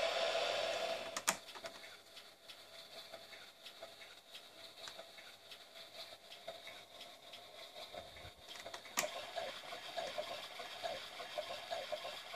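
Fisher-Price Ocean Wonders baby swing's battery-driven swing motor running, a steady whirr with fast, even ticking. There is a louder noise in the first second and sharp clicks about a second in and at nine seconds.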